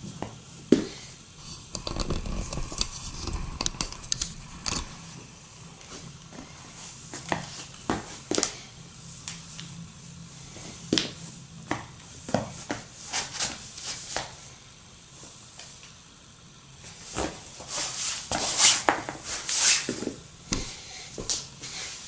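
Sneakers being put on and shuffled on a laminate floor: scattered scuffs, soft knocks and rustles, busier and louder near the end.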